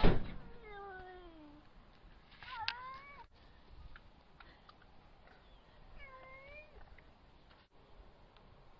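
Cat meowing: a long meow falling in pitch at the start, a shorter meow that rises and falls about two and a half seconds in, and another about six seconds in.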